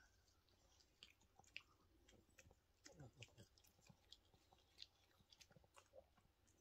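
Yorkshire terrier chewing a dog treat: faint, irregular crunches and gnawing clicks.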